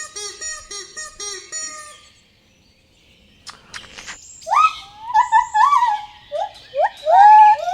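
Animal calls: a run of short honking calls, then, after a pause of about two seconds, a quick series of higher chirping calls that each rise sharply in pitch.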